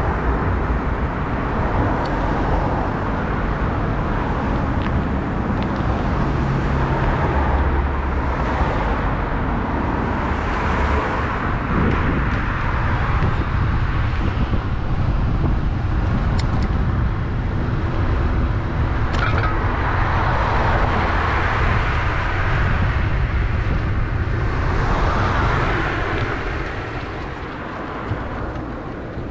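City street traffic noise heard from a moving bicycle: a steady low rumble of road and wind noise, with cars swelling past about two-thirds of the way in and again a little later. It eases off near the end.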